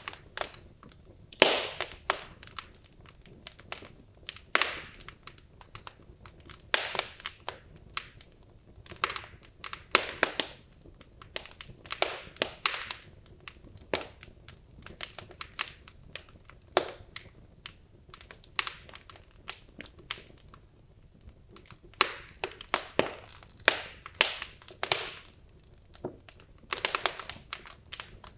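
Wood logs burning in a fireplace, crackling with irregular sharp pops and snaps, sometimes in quick clusters and sometimes a second or two apart, over a faint low hiss.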